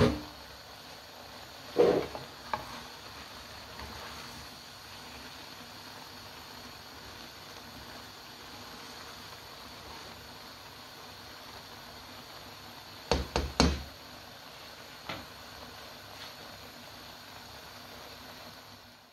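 A spatula knocking against a non-stick wok as stir-fried vegetables are turned: a few knocks about two seconds in, a quick cluster around thirteen seconds and one more near fifteen, over a faint steady hiss.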